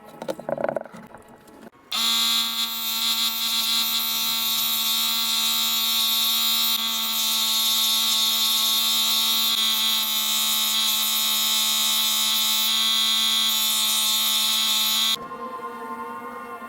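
A shop machine or electric tool running at a steady speed with a loud, high-pitched whine, starting about two seconds in and cutting off abruptly near the end. A few light clicks come before it starts.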